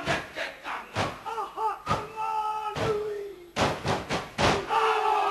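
Māori kapa haka group performing a haka: massed shouted chanting with wavering, drawn-out voices that slide down in pitch near the end, punctuated by sharp irregular slaps and stamps.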